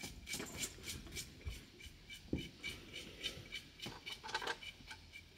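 Faint chirps repeating evenly about three times a second, with a couple of soft knocks.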